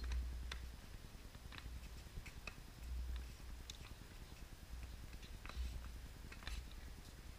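Wind gusting on the microphone as a low rumble, with scattered faint ticks and scuffs from players on a hard tennis court.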